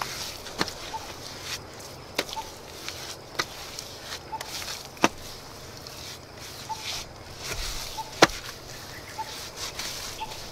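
Wet cement mortar slapped and pressed onto a brick wall by hand: several sharp slaps a second or more apart, the loudest about eight seconds in, over a steady high hiss and faint short chirps.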